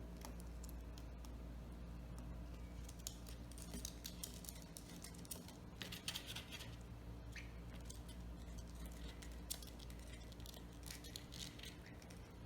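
Small pet birds moving about, giving scattered light clicks, taps and short rustles, over a steady low hum.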